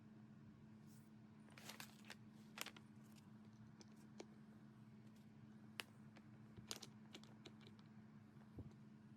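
Near silence with a faint steady hum, broken by scattered light clicks and taps of small hard objects being handled, about a dozen of them at uneven intervals.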